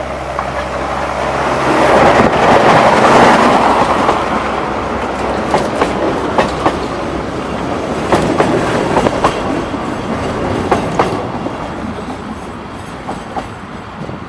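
A Hudswell-Clarke 0-6-0 diesel-mechanical narrow-gauge locomotive, with a six-cylinder Gardner 6LX diesel engine, runs past close by. It is loudest about two to four seconds in. Its coaches follow, their wheels clicking over the rail joints, and the sound fades as the train draws away.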